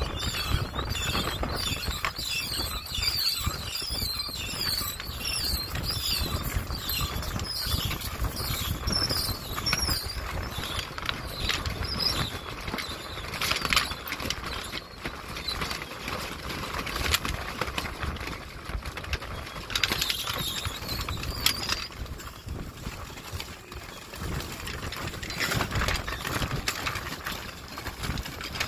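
A schooner's gaff sail being hoisted: a quick series of short, high squeaks through the first ten seconds, with a few more later, from the halyard running through its blocks as it is hauled. Under them are loose sailcloth flapping and wind buffeting the microphone.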